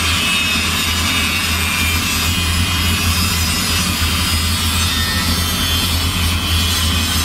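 Corded power tool running steadily as it cuts through the exhaust pipe under an old Ford F-100 pickup, with a constant low hum beneath it.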